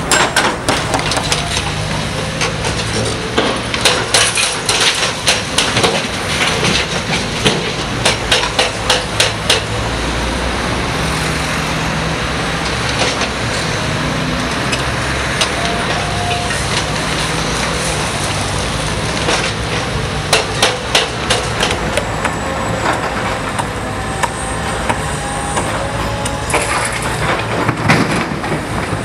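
Heavy construction machinery running steadily at a roadworks site, with bursts of rapid hard knocks several a second, typical of metal tools or buckets striking during digging and piling work.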